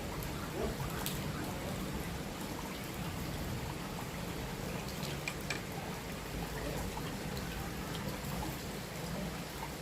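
Steady rain falling, an even hiss with a few scattered ticks of drops.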